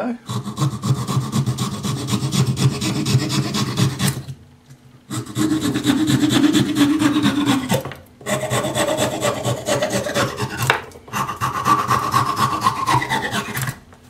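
The small double-toothed wood saw of a Victorinox Camper Swiss Army knife sawing back and forth through a damp, medium-hard branch about 18 mm thick. The sawing comes in three bouts of quick strokes with short breaks between them, and goes clean through the branch.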